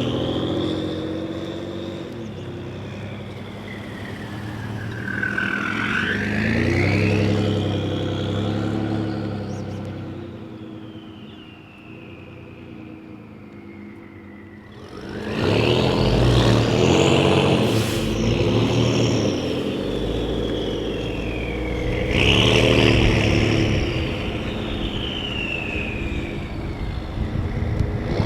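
Ford F-150's twin-turbo 3.5L EcoBoost V6, fitted with SPD and Corsa performance exhaust parts, revving and accelerating several times. With each pull a loud turbo whistle glides up in pitch over the engine note, then falls away as the throttle lifts; the strongest pull starts about halfway through.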